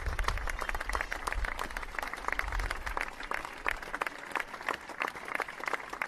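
Crowd applause: many hands clapping together in a dense, irregular patter. A low rumble underneath fades out about three seconds in.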